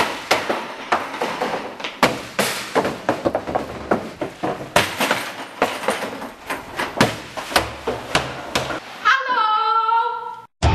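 Large plastic trash cans being kicked along a hard hallway floor: a rapid, irregular string of thuds, knocks and clatters. About nine seconds in the knocking stops and a person's drawn-out vocal cry rises and wavers for over a second.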